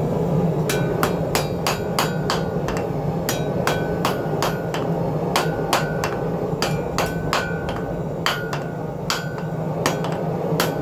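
Hand hammer striking a red-hot steel bar held in tongs on an anvil: steady blows about three a second, starting about a second in, many leaving a short ringing anvil tone. A steady low hum runs underneath.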